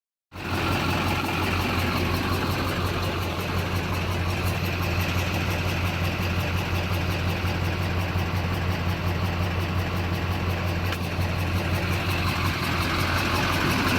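LB7 Duramax 6.6-litre V8 turbodiesel idling steadily, with a fast, regular ticking over the engine note: the sound of a stuck injector, run here mid-way through an injector cleaning treatment.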